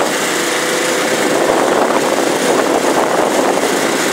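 Diesel engine of a Kawasaki Mule side-by-side running steadily while it drives, heard from the driver's seat.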